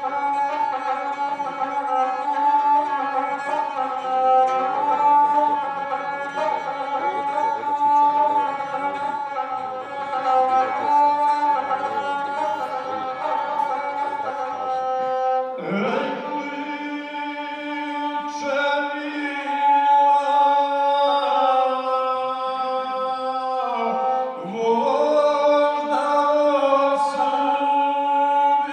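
Gusle, the single-string bowed folk instrument, played by a seated man who sings an epic song over its ornamented, droning melody. A new phrase begins about halfway through.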